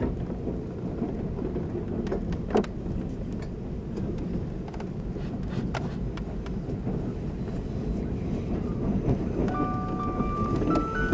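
JNR 583-series sleeper train running, heard from a berth above a motor car's bogie: a steady rumble with scattered wheel clicks and one sharp knock about two and a half seconds in. Near the end, a chime tune of bell-like notes starts over the train's public-address speakers.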